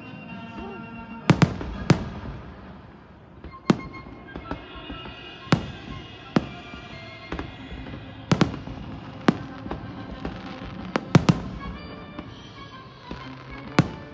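Aerial fireworks shells bursting: about a dozen sharp bangs at uneven intervals, some in quick pairs, with fainter crackles between them, over music playing.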